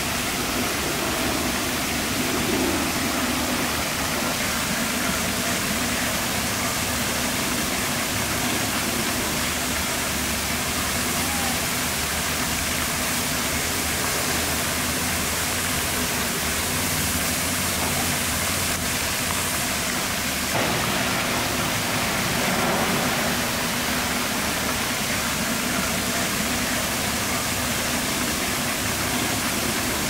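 Fountain jet spraying steadily, its water splashing down onto the pond surface in a constant hiss.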